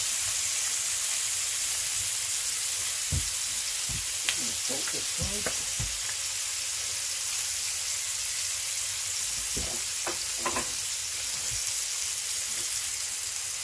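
Thick slices of meat sizzling and spitting in a hot cast-iron pan, a steady high frying hiss, with a few soft knocks a few seconds in and again about ten seconds in.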